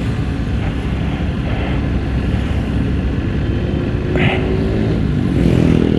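Suzuki Skydrive Sport scooter's engine running at low speed amid idling traffic, a steady low rumble with some wind noise on the microphone. An engine note swells about four seconds in.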